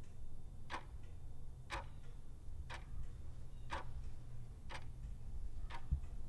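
Clock-ticking countdown sound effect: six sharp ticks, one a second, over a low steady hum.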